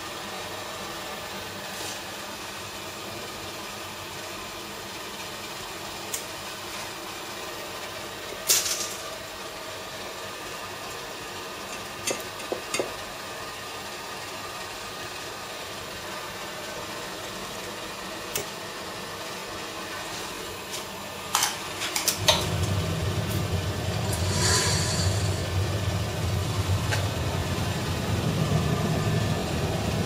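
Steady hum of glassblowing studio equipment, broken by a few sharp metallic clinks of a steel blowpipe on steel. About two-thirds of the way through, a louder low roar sets in and continues: the glory hole running while the glass is held in it.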